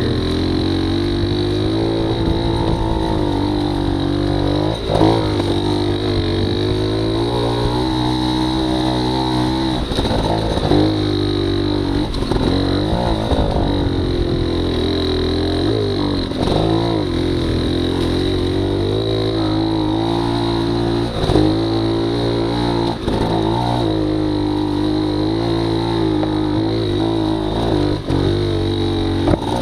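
280cc two-stroke trials motorcycle engine running under load as the bike is ridden, its pitch rising and dipping again and again with the throttle.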